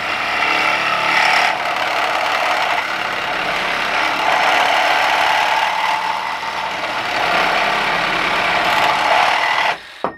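Milwaukee M12 Fuel Hackzall one-handed reciprocating saw running hard as its blade cuts through a steel chain-link fence post with an eighth-inch wall. The saw stops suddenly near the end, followed by a few short clinks.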